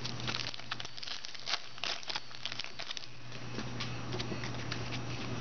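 Foil trading-card pack wrappers crinkling and cards being handled: a run of light crackles and clicks, busiest in the first three seconds, over a steady low hum.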